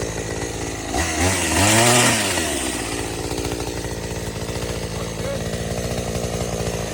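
BILT HARD 46cc two-stroke gas chainsaw idling, revved up once about a second in and falling back to idle over the next couple of seconds.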